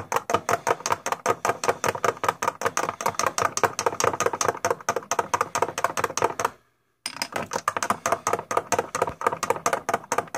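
A spoon clinking rapidly and evenly against the side of a drinking glass as milk is stirred, several clinks a second, with a brief dead-silent break about two-thirds of the way through.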